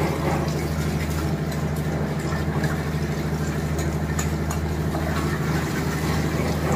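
A steady, low mechanical hum like a running engine, with a few light clicks over it.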